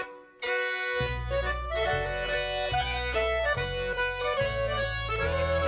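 Background music, a melody of held notes over a sustained bass, coming in after a brief silent gap about half a second in.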